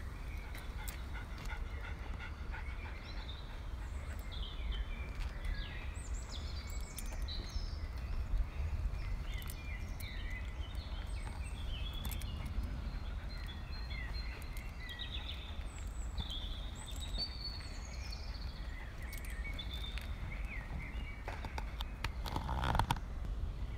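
Small birds chirping and singing on and off over a steady low rumble, with one brief louder call about a second before the end.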